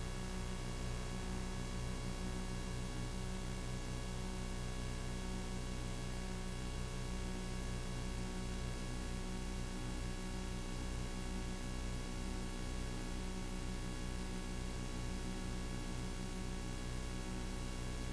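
Steady electrical hum with hiss on an otherwise silent audio track; no other sound.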